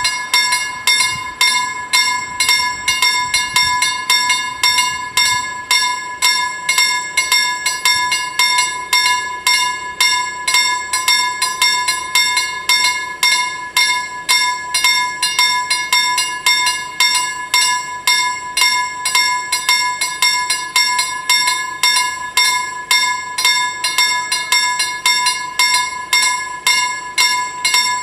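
Two level-crossing warning bells ringing in a fast, even run of strokes, each stroke ringing on in a bright tone. The ringing warns road users that a train is approaching the crossing.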